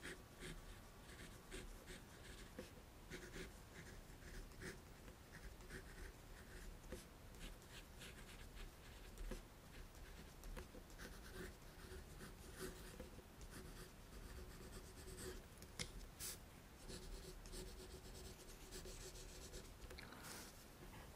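Soft, close-up scratching and light tapping on an object: an irregular scatter of small scrapes and clicks, a few of them louder.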